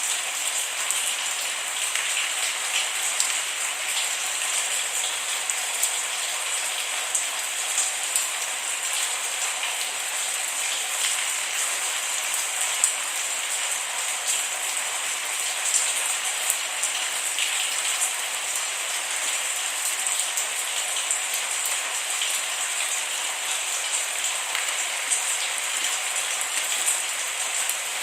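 Steady rain falling, a dense even hiss dotted with many small drops, with no thunder.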